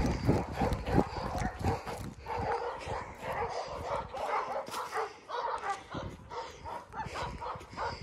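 Dogs barking in a rapid, continuing string of barks at a bear.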